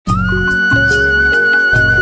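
Intro music: one long held high melody note over a bass line that steps between notes, with a steady beat.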